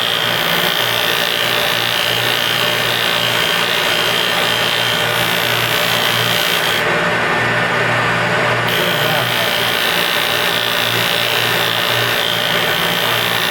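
Felder shaper spindle turning a 60 mm Schleiffix aluminium sanding drum at about 3,500 rpm, its 80-grit paper rubbing against the edge of a Baltic birch plywood curve fed by hand in light passes. A steady machine hum under a grinding hiss; the hiss eases for a couple of seconds midway.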